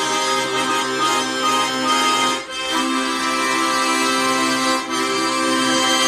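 Bayan (Russian chromatic button accordion) playing full sustained chords. The sound breaks off briefly about halfway through and again near the end, and each break is followed by a long held chord.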